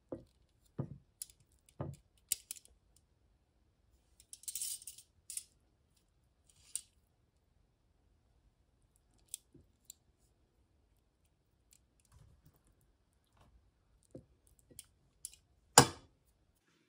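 Serving tongs and food against a ceramic plate as stir-fried noodles are dished up: scattered light clicks and soft knocks, a short rustle about five seconds in, and one sharp knock near the end, the loudest.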